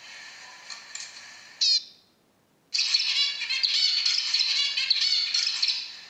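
Zebra finches calling with short chirps, one loud call about one and a half seconds in, then after a brief silence a zebra finch singing a rapid, chattering song for about three seconds.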